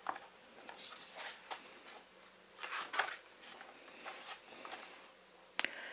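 Faint rustling of a hardcover picture book's paper page being turned and smoothed flat by hand, in several soft swishes about a second apart.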